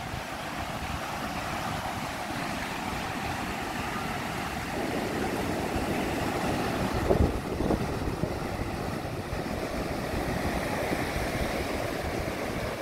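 Ocean surf breaking and washing onto a sandy beach, with wind on the microphone. The wash grows fuller about five seconds in, and there is a brief louder thump about seven seconds in.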